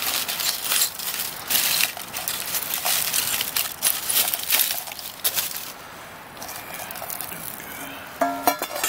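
Aluminium foil crinkling and a knife scraping and knocking in a steel frying pan as a foil-wrapped, coal-roasted game hen is opened and pulled apart. The handling is busiest for the first five seconds or so, then quietens.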